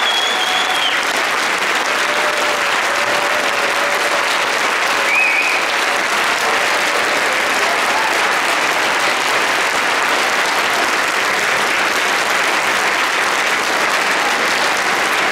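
Concert audience applauding steadily after a band piece, a dense, even clatter of many hands clapping.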